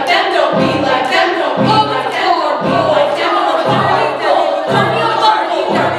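A stage-musical ensemble of several voices singing a show tune together into microphones over a band accompaniment, with a steady low beat about once a second.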